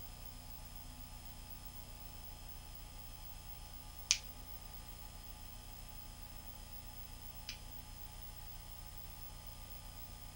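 Steady electrical mains hum and hiss on an old reel-to-reel videotape soundtrack, with faint steady high tones. Two sharp clicks cut through it, a louder one about four seconds in and a weaker one about seven and a half seconds in.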